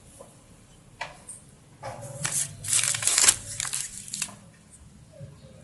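Plastic packaging being crinkled and torn open, in short rustling bursts from about two seconds in, after a single sharp click about a second in.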